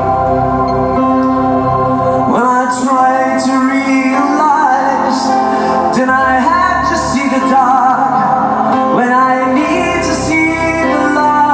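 Live band performance: sustained keyboard chords with a singing voice coming in about two seconds in and carrying a slow melody.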